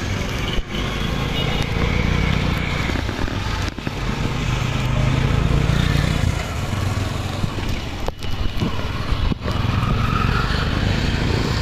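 Steady road traffic noise with vehicle and motorbike engines passing close by, broken by a few brief dropouts.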